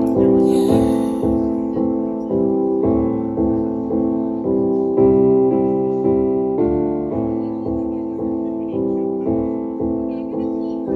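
Piano backing track playing slow chords, each chord re-struck about two or three times a second in an even pulse and changing every couple of seconds.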